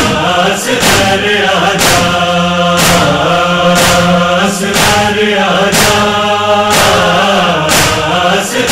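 A chorus chanting over a steady low drone, with a sharp beat about once a second. The beat is the chest-beating (matam) rhythm that keeps time in a Shia noha lament.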